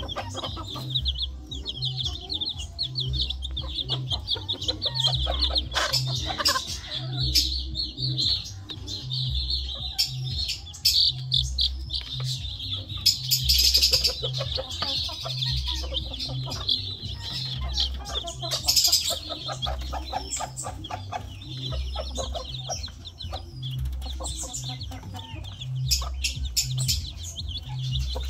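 Chicks peeping continuously in high, rapid chirps, with clucking from a hen, over a steady low beat of background music.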